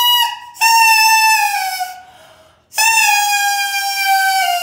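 Small plastic toy horns blown one after another in long, shrill blasts. One blast ends just after the start and two more follow, each lasting a second and a half to two seconds and sagging in pitch at its end.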